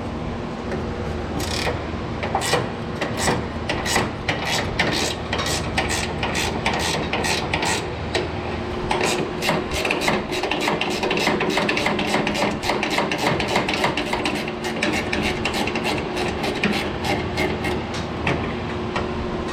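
Ratchet wrench with a 1/2-inch socket clicking in a steady rhythm, about two to three clicks a second.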